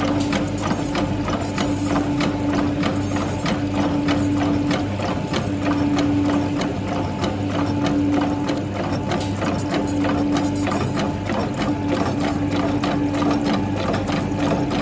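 HJXBJ450 printing-plate washing machine running: a steady motor hum with a mid-pitched tone that fades in and out, over an even mechanical clicking about four times a second.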